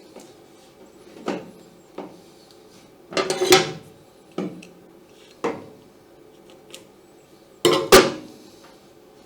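Hard objects being handled and set down: a series of separate knocks and clatters, with a cluster about three seconds in and the loudest double clatter near the end.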